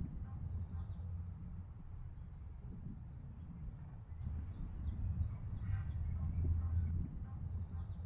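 Small songbirds chirping and trilling again and again, over a low rumble.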